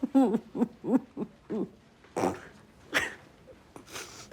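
A woman sobbing, too choked to finish her sentence: a run of short, broken hooting cries in the first second and a half, then a few sharp gasping breaths.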